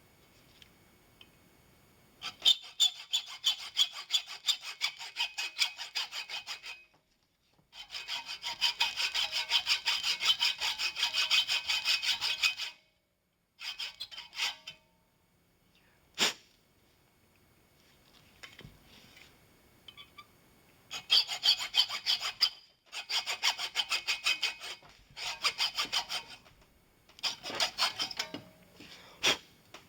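Metal file scraping on brass in runs of quick back-and-forth strokes, stopping and starting several times, with one sharp click partway through.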